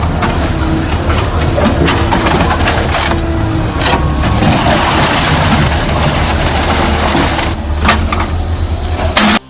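Demolished building collapsing: a loud continuous rumble with scattered crashes of falling debris, cutting off suddenly near the end.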